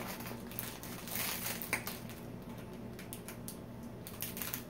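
Plastic snack wrappers crinkling and rustling as packets are rummaged through and picked up, in irregular crackles that are busiest a little over a second in.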